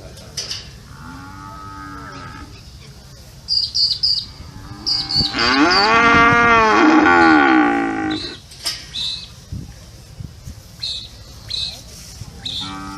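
Cattle mooing: a softer moo about a second in, then a long, loud, arching moo lasting about three seconds, and another moo starting near the end.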